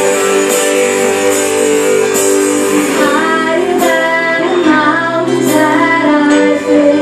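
Live worship band music: sustained keyboard and guitar chords, with a woman's lead vocal coming in about three seconds in.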